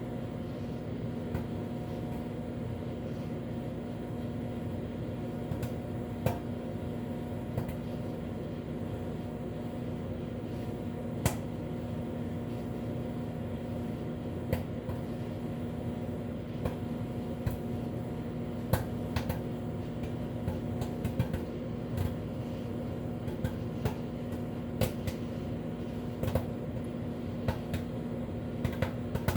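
Microwave oven running with a steady hum while popcorn kernels pop inside a fabric microwave popcorn bag. The pops are single sharp cracks, a few at first, coming more often in the second half as popping gets under way.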